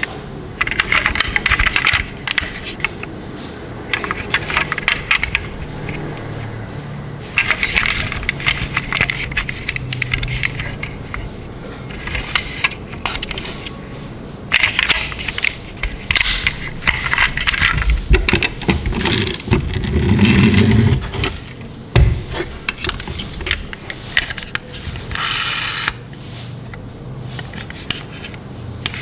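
Die-cast toy cars handled close up: irregular clusters of clicks, rattles and scrapes as the model is turned in the hands and its doors and bonnet are opened. There is a brief rushing noise about a second long near the end.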